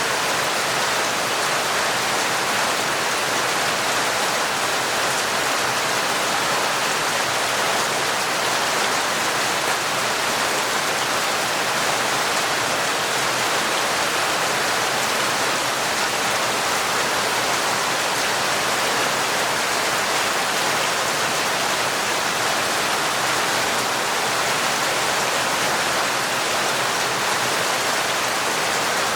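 Torrential rain falling steadily, an even, unbroken hiss of countless drops with no let-up.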